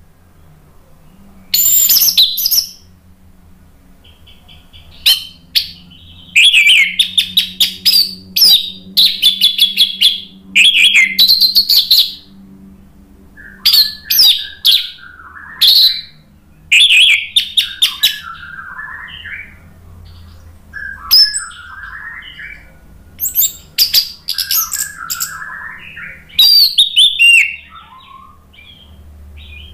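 Orange-headed thrush singing: loud phrases of rapid, high whistled notes broken by short pauses, with softer, lower warbling between phrases.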